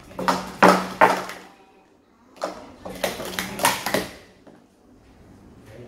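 Plastic sport-stacking cups clacking against each other and the mat as three stacks of three are built up and taken down at speed. The clacks come in two quick runs of about a second each, the second starting about two and a half seconds in.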